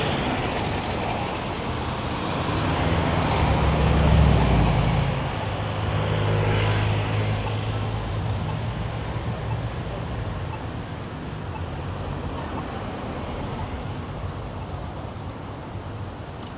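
City street traffic: motor vehicles passing close by with a low engine rumble, the loudest passing about four seconds in and another shortly after, then easing into a steady background traffic hiss.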